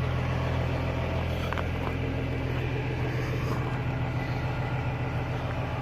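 Idling diesel truck engine: a steady low drone that holds unchanged, with a few faint clicks over it.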